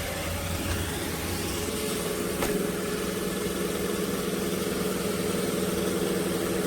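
iRobot Roomba j7+ robot vacuum running, a steady motor whir with hiss, with a single faint click about two and a half seconds in.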